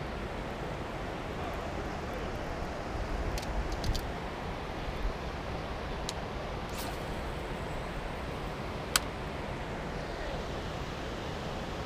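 Steady outdoor rushing noise, wind on the microphone, with a few low rumbles a few seconds in and scattered sharp clicks, the sharpest a single tick about nine seconds in.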